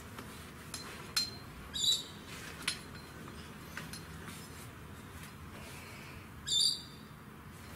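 A plastic welding-style helmet being handled and adjusted on the head: a few sharp clicks and two brief, high-pitched squeaks, the louder one near the end.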